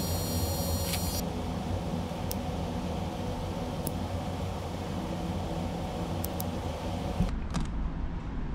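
Small handheld rotary tool with a ball burr running with a high whine on a wax carving model, cutting off about a second in. Under it and afterwards a steady low hum, with a few small clicks.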